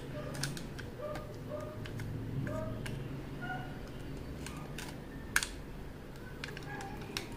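Snap-off utility knife blade scraping and slicing through packing tape on a cardboard tube, a series of light irregular clicks and scratches with one sharper click about five seconds in.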